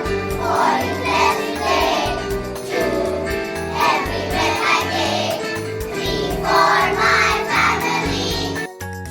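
A song with a group of voices singing over a steady, pulsing bass accompaniment. The singing stops near the end, leaving the accompaniment alone.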